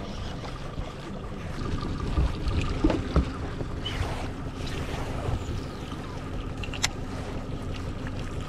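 A boat's motor hums steadily under wind buffeting the microphone. A few knocks of handling come around two to three seconds in, and a single sharp click comes later.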